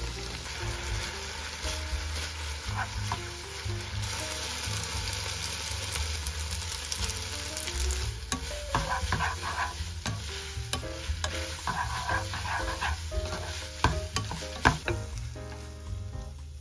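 Shrimp and vegetables sizzling in a frying pan as they are stir-fried. From about eight seconds in, spaghetti is tossed through the pan with tongs, with clicks and scrapes against the pan.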